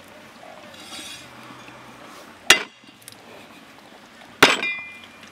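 Two sharp knocks of a steel cleaver striking a round wooden chopping block, about two seconds apart; the second leaves a brief metallic ring.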